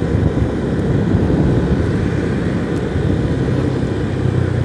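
Motorcycle engine running steadily while riding, under a dense low rumble of wind and road noise on the microphone.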